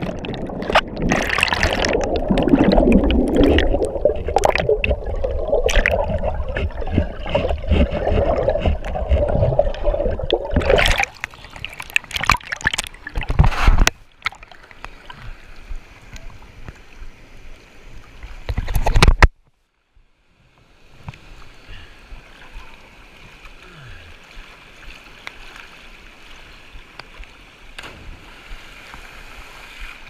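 Turbulent whitewater rushing and bubbling around a camera carried through it underwater, loud for about the first ten seconds, with a loud surge that cuts off suddenly about 19 seconds in. After a moment of near silence, a steady, quieter rush of the waterfall and pool carries on.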